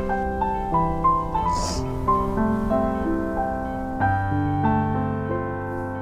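Slow, gentle background music led by piano, with held notes. A deeper bass note comes in about four seconds in.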